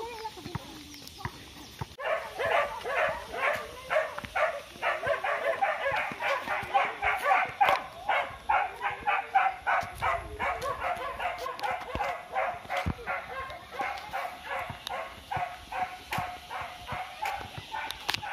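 An animal calling over and over in short, evenly spaced calls, about four a second, starting about two seconds in and running on steadily.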